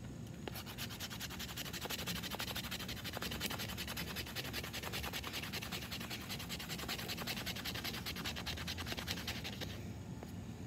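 A knife blade scraping rapidly down a split stick of wood, many quick strokes a second, shaving off fine curls and dust for tinder. The scraping stops shortly before the end.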